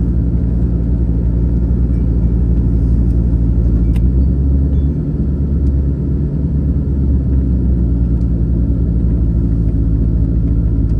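1985 Corvette's 350 V8 running as the car drives, a steady low rumble, while its 700R4 automatic transmission is losing gears. A single click about four seconds in.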